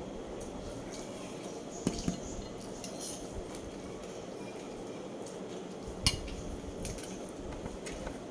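Tableware clinking during a meal: two sharp clinks about two seconds in and a louder one about six seconds in, over a steady low background hum.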